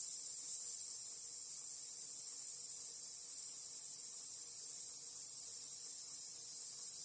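A steady, even high-pitched hiss that holds one level throughout.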